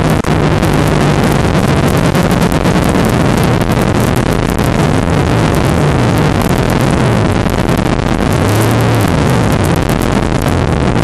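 An O.S. .46 two-stroke glow engine running in an RC model plane as it taxis, heard close up from a camera mounted on the plane. A steady hiss lies over the engine note, and the engine's pitch wavers up and down.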